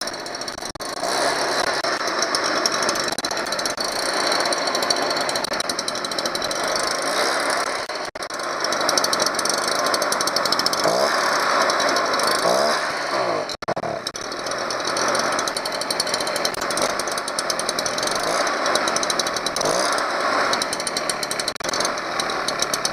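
Stihl BR 400 backpack leaf blower's two-stroke engine running steadily, its speed rising and falling a few times midway as the carburetor is adjusted.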